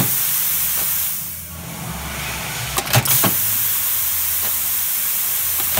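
Compressed air hissing steadily from a National Rivet pneumatic riveting machine, easing off briefly about a second and a half in, with a few sharp clacks about three seconds in. The machine's riveting ram is not coming down as it should.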